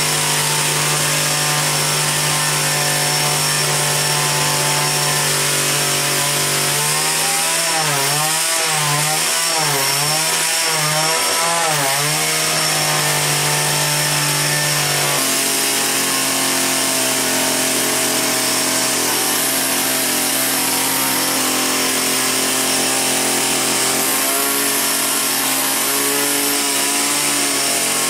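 Homemade gasoline-powered vacuum cleaner's small petrol engine running steadily under load as it vacuums, a bit loud. Between about a quarter and halfway through, its note wavers up and down several times, then it settles to a steady note again.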